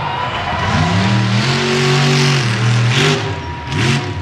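Monster truck's engine revving hard: the pitch climbs, holds at high revs for about a second, then drops and is blipped up twice near the end.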